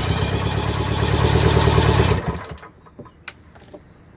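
Electric starter cranking a 1975 Mercury 850 outboard, an 85 hp inline-four two-stroke, over with a steady rhythm for a compression test on cylinder one, which reads 177 psi. It stops a little over two seconds in, followed by a few light clicks.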